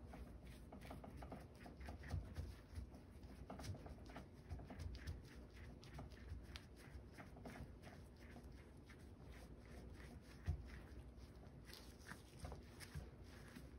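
A towel rubbed and dabbed over the round drills of a diamond painting canvas: faint, irregular scratchy rubbing with many small clicks, and one sharper knock about ten seconds in.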